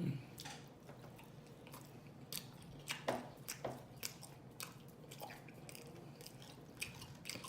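A person chewing a mouthful of fried chicken with cheese sauce close to the microphone, with wet mouth clicks and smacks at irregular intervals.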